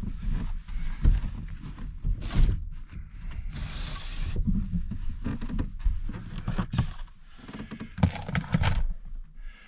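Irregular knocks, thumps and rustling as a person shifts about and handles gear inside a pickup's camper shell, with a short scraping rustle about four seconds in.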